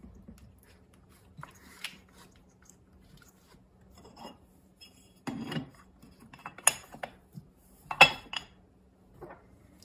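Hands handling aluminium plates and parts on a small robot chassis: scattered rubbing and light clicks, a dull thud about halfway through, then two sharp metal clinks, the second the loudest. A faint steady hum runs underneath.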